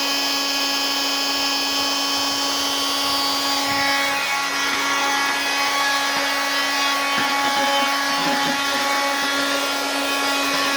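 Handheld 12V car vacuum cleaner running, its small motor giving a steady high-pitched whine. About four seconds in, the airflow rush grows rougher and hissier while the whine carries on unchanged.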